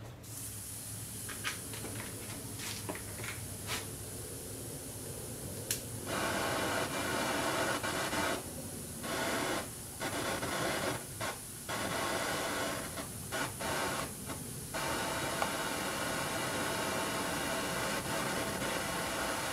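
A few sharp clicks, then, about six seconds in, the steady hiss of a gasoline-vapor torch jet burning at its nozzle, fed at 20 psi. The hiss cuts out briefly several times before running on evenly.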